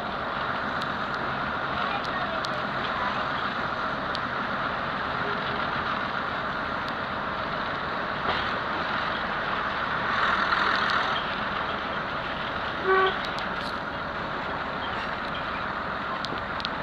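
Class 121 diesel railcar running along the line, heard from inside the passenger saloon: a steady hum of engine and wheels on the rails with occasional faint clicks. About 13 seconds in, a brief loud toot of the horn.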